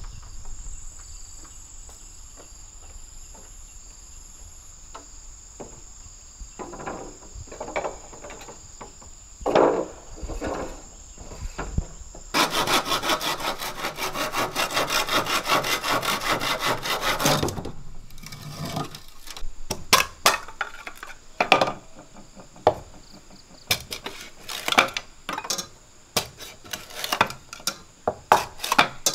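A hand saw cutting through a green bamboo pole in rapid back-and-forth rasping strokes for about five seconds, starting about twelve seconds in. After it come sharp, separate knocks as a knife splits a bamboo section into strips. Before the sawing there are a steady high insect drone and scattered soft knocks.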